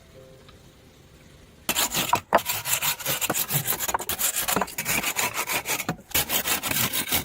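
Hand saw cutting through wood in quick back-and-forth strokes, starting about two seconds in and pausing briefly twice.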